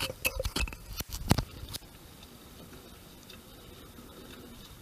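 A quick run of hard knocks and clatters around the kayak as it pushes off from the dock, then a faint steady hiss of water and air.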